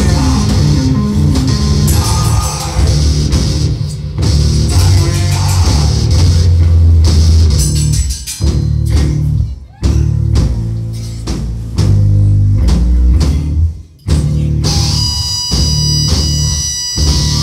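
A rock band playing live and loud, with a drum kit and amplified instruments. The music stops abruptly twice, briefly, about ten and fourteen seconds in.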